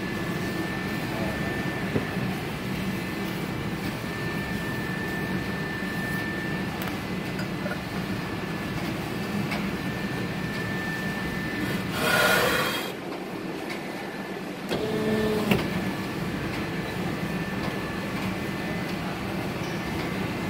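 Steady hum of machinery in a cement tile workshop, with a faint steady high tone over it. About twelve seconds in there is a brief louder burst, and around fifteen seconds a short pitched whine.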